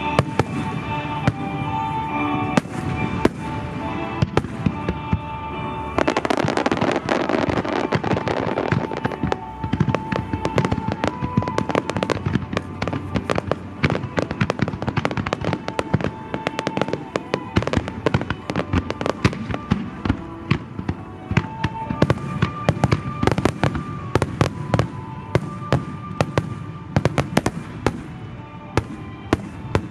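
Fireworks shells bursting in quick succession, a long run of sharp bangs, with music playing along. From about six seconds in the bursts thicken into a dense, crackling barrage.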